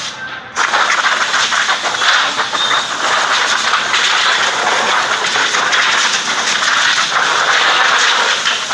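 Compressed-air blow gun hissing steadily as the car's engine bay is blown out with air instead of being washed. The blast breaks off briefly about half a second in, then carries on.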